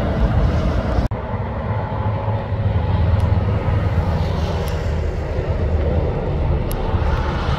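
Heavy diesel truck driving past, its engine a steady low drone over road noise. The sound breaks off abruptly about a second in and carries on with the same kind of drone.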